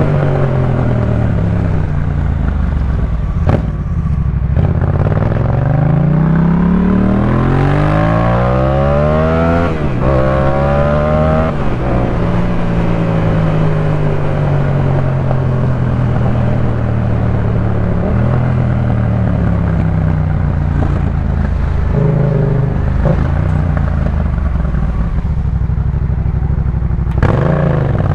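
Yamaha MT-07 parallel-twin through a Jeskap K4 full aftermarket exhaust, ridden on the road. A third of the way in it accelerates hard: the pitch climbs, drops at a gear change and climbs again. Then it settles to a steady cruise, with another rise in revs near the end.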